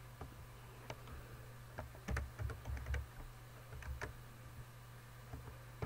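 Irregular keystrokes on a computer keyboard, typing a short name, with a few mouse clicks, over a steady low hum.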